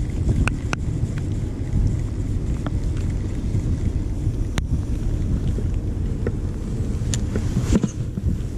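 Wind buffeting the microphone as a low, uneven rumble, with a few scattered sharp clicks and taps.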